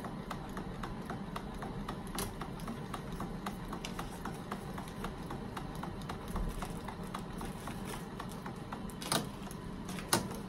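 Apheresis cell-separator machine running during a stem cell collection: its pumps and centrifuge make a rapid, even ticking over a steady hum, with two louder clicks near the end.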